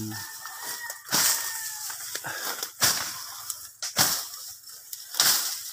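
Dry leaves, palm fronds and ferns rustling and crackling underfoot and against the body as people push through dense undergrowth, in a run of separate swishes about one or two a second.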